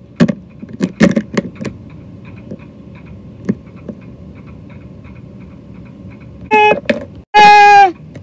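Clicks and taps of plastic toys being handled on a Lego baseplate, then, near the end, loud high cries that drop in pitch at their ends: a voice doing screeches for the toy dinosaur.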